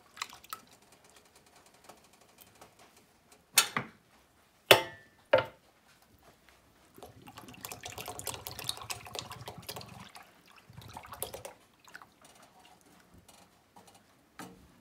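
Evaporated milk poured from a can into a saucepan of milk, the stream splashing in the milk. Three sharp knocks a few seconds in are the loudest sounds, and a second, longer pour follows about halfway through.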